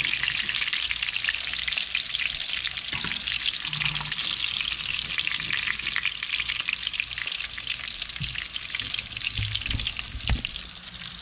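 Breaded porgy fillets shallow-frying in hot canola oil in a non-stick pan: a steady, dense crackling sizzle. A few low knocks come through, the clearest near the end.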